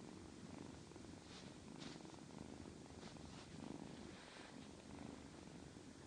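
A domestic cat purring steadily and faintly while being petted.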